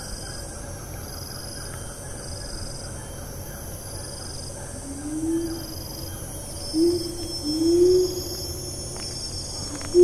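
Rainforest insects buzzing steadily, with a high chorus that swells and fades about every two seconds. From about halfway through, a siamang gives three low hoots that glide upward, the opening of its call.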